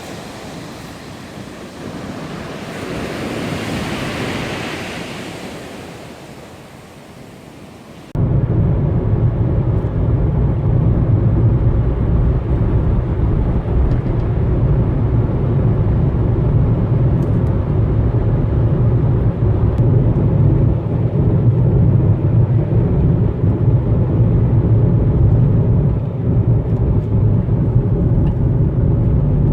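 Surf on a shore, rising in one swell and fading, then a sudden cut about eight seconds in to the steady low rumble of a car driving.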